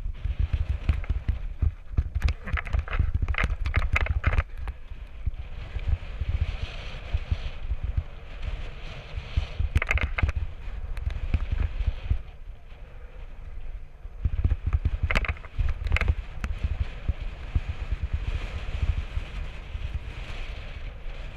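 Mountain bike descending rough dirt singletrack: a steady low rumble of wind on a helmet-camera microphone, with clusters of rattling and clacking from the bike jolting over rocks a few seconds in, about halfway through, and again about three-quarters through.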